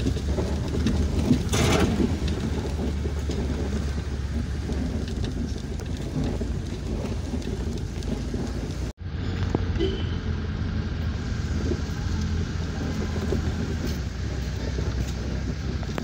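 Car cabin noise while driving slowly: a steady low engine and road rumble with tyre hiss, heard from inside the car. The sound cuts out for an instant about nine seconds in.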